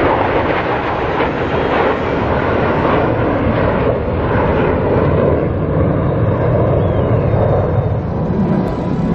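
Jet noise from F-16 Fighting Falcon fighter jets flying over in formation: a loud, steady rush with a deep rumble that grows stronger in the second half.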